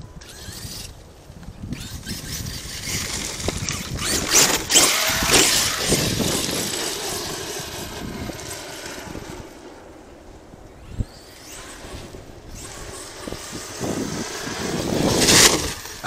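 Arrma Kraton 8S brushless electric RC monster truck being driven hard on dirt: its motor and drivetrain whine up and down with the throttle while the tires churn the ground. It is loudest about four to six seconds in and again near the end, with one sharp knock about eleven seconds in.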